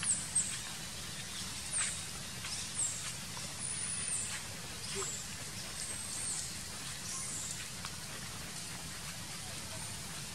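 Scattered short, high chirps and squeaks from small animals, each falling quickly in pitch, with a few faint clicks, over a steady low hum.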